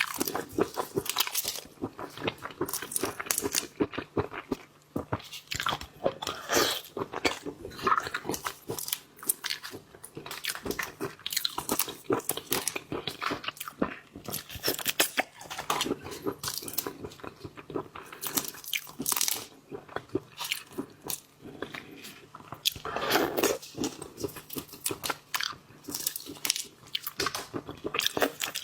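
Seafood being bitten and chewed close to the microphone: a dense run of sharp crunches and bites mixed with wet chewing and smacking.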